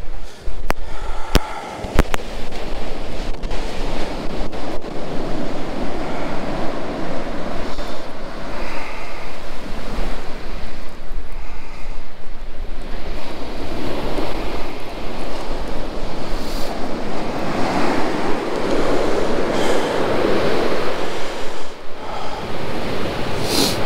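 Waves breaking and washing up the beach in a continuous rushing surge that swells and fades, with wind buffeting the microphone. A few sharp clicks come in the first two seconds.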